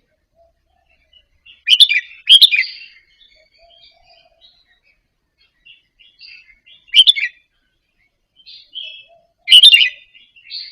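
Red-whiskered bulbul singing: two loud, quick song phrases about two seconds in, another around seven seconds and one near the end, with soft chattering notes between.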